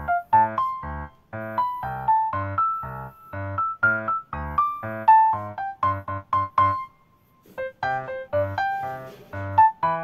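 Background music: a keyboard melody of quick, evenly timed notes over a regular low beat, breaking off briefly about seven seconds in.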